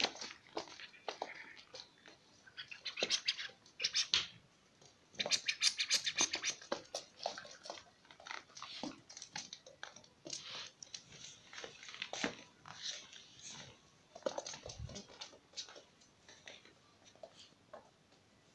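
Dog chewing and gnawing on a toy hippo: irregular bursts of crunching, clicking bites and scratches, with the densest runs of rapid clicks a few seconds in.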